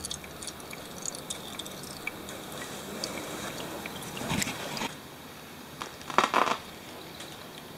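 Hand-work noises under a scooter during an oil change: scattered small clicks and scrapes, with two louder rustling scrapes about four and six seconds in.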